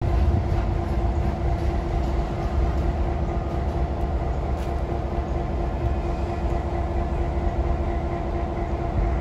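EMD GP9RM diesel-electric locomotive running as it leads a freight train slowly along the track: a steady engine drone with a constant hum over a heavy low rumble.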